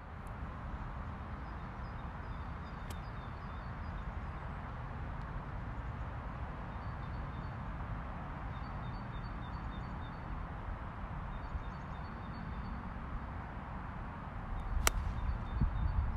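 A golf iron striking the ball once, a single sharp click about fifteen seconds in, over a steady low background rumble with faint, short, repeated bird calls.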